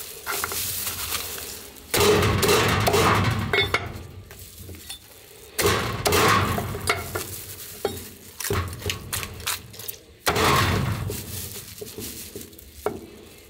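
Cleaver chopping a freshly barrel-roasted whole chicken on a wooden chopping block. Three heavy strokes come a few seconds apart, each trailing off over a second or two, with lighter sharp knocks in between.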